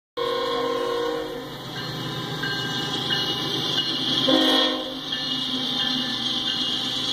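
Diesel freight locomotive's air horn sounding as the train approaches a grade crossing, over the low rumble of the oncoming train. The horn is loudest at the start and again briefly about four seconds in, and weaker in between.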